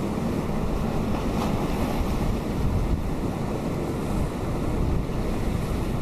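Atlantic surf breaking on rocks offshore, a steady rushing wash without single standout crashes, with a low rumble of wind buffeting the microphone.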